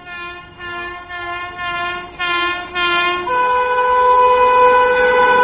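Locomotive horn of an approaching express train: about six short blasts in quick succession, then one long steady blast from just past halfway, growing louder as the train nears.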